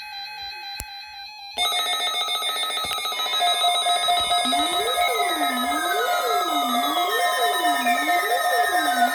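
Electronic alert tones: quieter steady synthesized tones, then about a second and a half in a sudden loud layered alarm of pulsing tones. About three seconds later a siren-like tone joins, sweeping up and down about once a second, with falling whistling sweeps above it.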